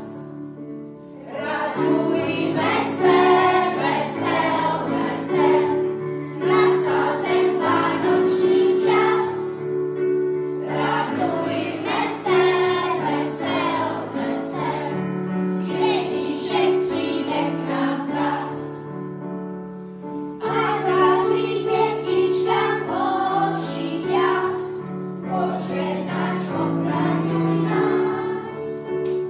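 Children's choir singing a Czech Christmas carol in phrases with short breaks between them, over held low notes from an electronic keyboard accompaniment.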